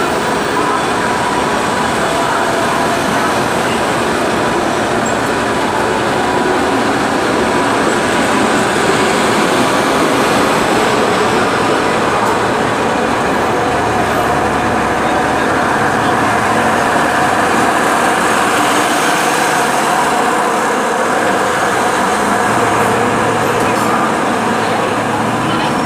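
Passenger train of LHB coaches rolling past at a steady pace: a loud, even rush of wheels on rails, with faint steady whining tones mixed in.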